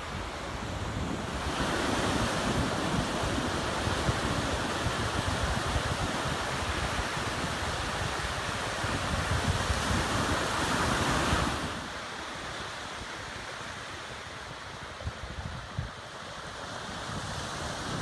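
Sea surf breaking and washing up a sandy shore. It runs loud for most of the first two-thirds, then drops suddenly to a softer wash of waves.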